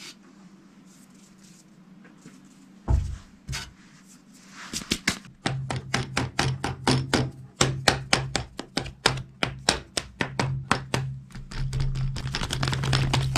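Rapid, irregular clicking and crackling from a fuel-pump strainer sock being worked by hand to knock dried, clogged fuel residue out of it, over a low hum. A single knock comes about three seconds in, before the clicking starts.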